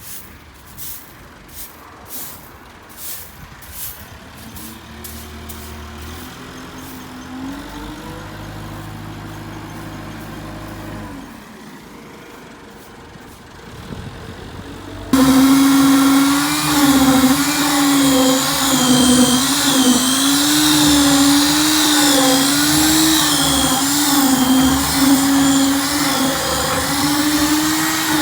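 An engine running, with a few regular knocks at first. Its pitch rises and holds, then from about halfway it is suddenly much louder, with a pitch that wavers up and down under changing load.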